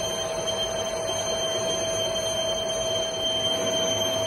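Metal lathe running steadily, a constant whine over even machine noise.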